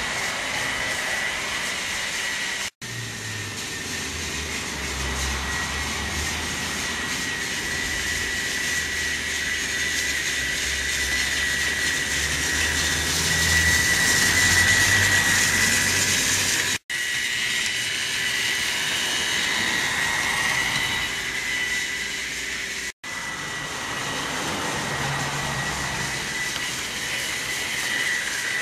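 Battery-powered toy trains running on plastic track: a steady high motor whine over a low rumble and rattle of wheels and trucks. The sound cuts out for an instant three times.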